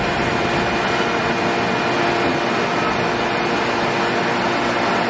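Bandsaw running steadily, its blade cutting through a thick wooden chair-leg blank.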